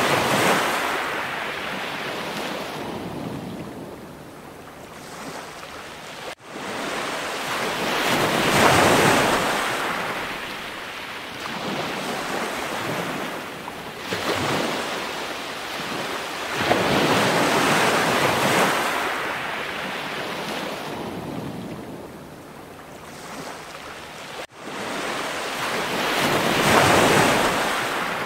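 Ocean surf: waves washing in as slow rising and falling swells of rushing noise every several seconds. The sound drops out suddenly and briefly twice, where the recording is cut.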